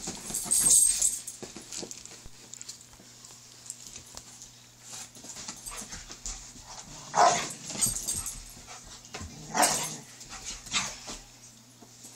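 Two dogs, a Doberman and a pit bull, playing rough, with three loud short barks, one just after the start, one about seven seconds in and one about nine and a half seconds in, and scuffling in between.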